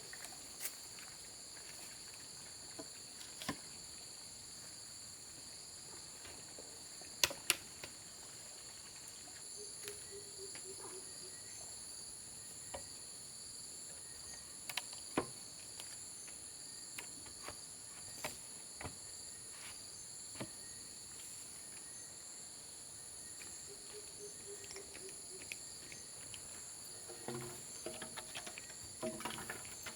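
Steady high-pitched insect chorus in several even bands, with scattered sharp clicks and taps and a flurry of them near the end.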